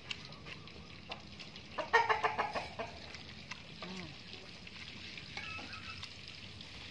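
Chicken clucking: a loud, quick run of clucks about two seconds in, then a few softer calls.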